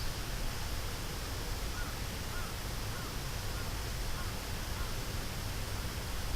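Steady outdoor background noise by a river, with about five faint, short calls from a distant bird in the middle.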